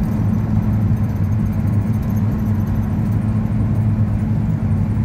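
Volkswagen Kombi van's engine droning at a steady pitch with road noise, heard from inside the cab while cruising.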